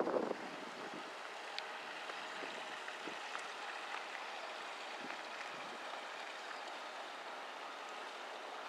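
Steady outdoor background hiss with a few faint ticks, and a short burst of wind buffeting the microphone right at the start.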